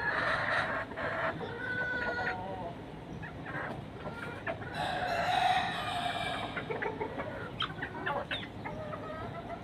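A flock of chickens clucking and squawking, the uploader's 'noise when they sense the danger', with a longer call like a rooster's crow about five seconds in.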